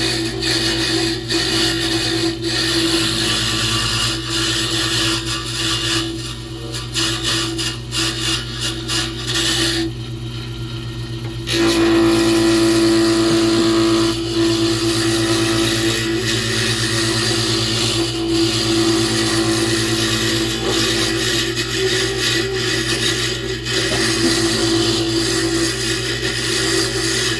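Pen lathe running, with a turning tool cutting two pen blanks at once: a steady motor hum under a rough scraping cutting noise. The cutting noise stops for a second or two about ten seconds in, while the hum carries on, then picks up again.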